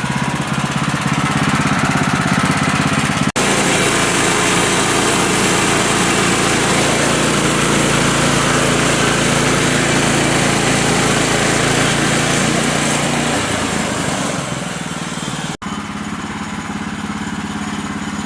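Small engine of a portable sawmill running steadily as it cuts a log into boards. It breaks off sharply twice, and its note drops about two-thirds of the way through as the engine slows.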